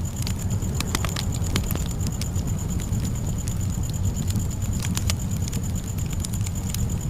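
Campfire burning: irregular crackles and pops from the wood over a steady low rumble of the flames.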